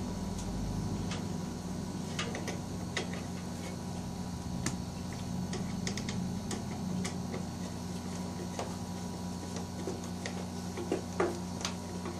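Irregular small metallic clicks and scrapes of a screwdriver working a screw into a steel panel board enclosure, the screw not yet catching its thread. A steady low hum runs underneath.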